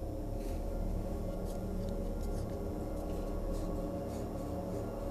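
A steady low droning hum with faint scattered ticks.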